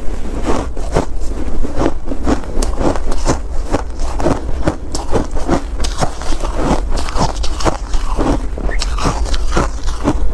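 Close-up crunching and chewing of fluffy shaved ice, a quick irregular run of crisp crunches about two a second, with a low steady rumble underneath.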